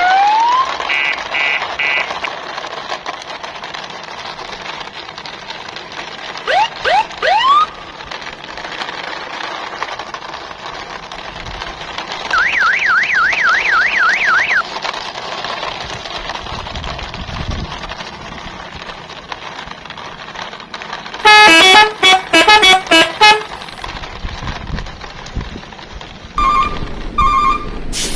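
A string of added sound effects over a steady hiss: rising whistle-like glides near the start and again about a third of the way in, then a fast warbling siren-like tone. About three quarters of the way in comes a run of short, loud horn honks, the loudest sound, followed by a few short beeps near the end.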